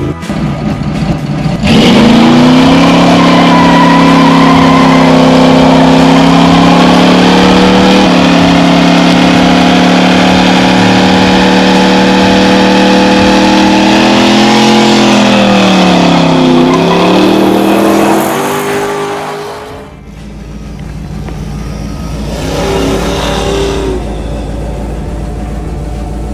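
1985 Chevrolet C10's 355 small-block V8, breathing through long-tube headers and Flowmaster 40 mufflers, held at steady high revs during a burnout. The revs dip and climb back near the middle, then drop away, leaving a quieter engine running for the last several seconds.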